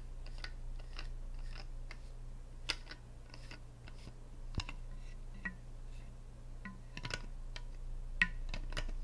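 Plastic twist-top water bottle handled close up, its cap twisted and lifted off: a string of irregular sharp plastic clicks and light scrapes, a few with a short ringing tone, over a steady low hum.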